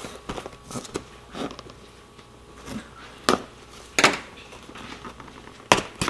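Small cardboard box being handled and opened: light rustling of the cardboard and several sharp taps and knocks, the loudest about three and four seconds in and just before the end.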